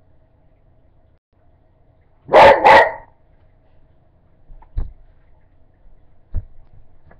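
A dog barks twice in quick succession, loudly, about two seconds in. A few soft thumps follow.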